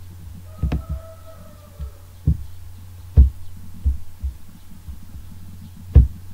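Steady low electrical hum with about seven irregular sharp clicks and knocks over six seconds, heavy in the low end.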